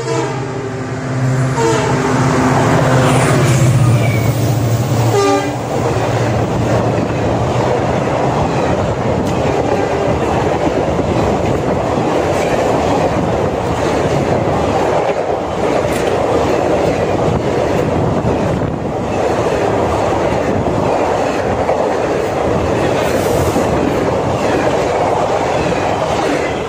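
A WDP-4 diesel locomotive sounds its horn and runs past at speed with a loud low engine note. The horn's pitch drops as the locomotive passes, about five seconds in. After that comes the steady rushing rumble and wheel clatter of the express coaches going by, which drops away right at the end.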